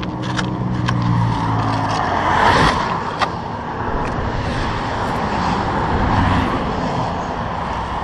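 Interstate traffic passing close by: a steady engine hum for the first couple of seconds, then a vehicle rushing past, loudest about two and a half seconds in.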